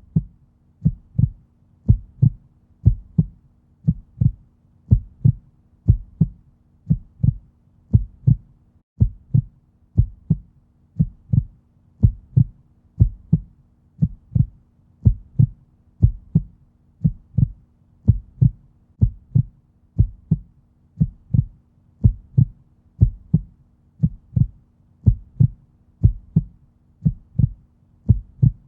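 Heartbeat sound: a steady lub-dub double thump repeating about once a second, like a resting heart rate, over a faint steady hum.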